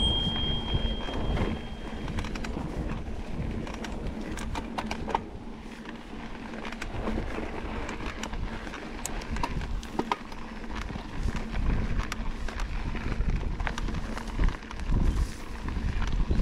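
Mountain bike rolling over a dirt singletrack: tyre noise on the dirt with scattered clicks and rattles from the bike, and wind on the microphone.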